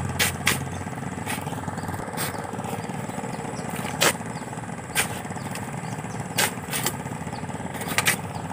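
Steel shovels being worked by hand in wet river sand: sharp scraping strikes as the blades dig in and throw loads into a pickup's bed, every second or so and at irregular intervals, over a steady background rumble.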